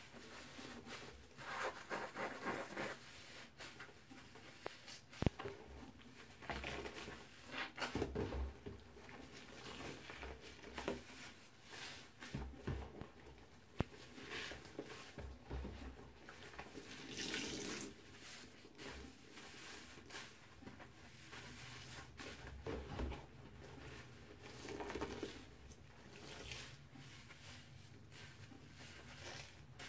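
Soapy scrub sponges with scouring pads squeezed by hand in a basin of suds: wet squishing and sloshing in repeated bursts at an uneven pace, with a couple of sharp clicks.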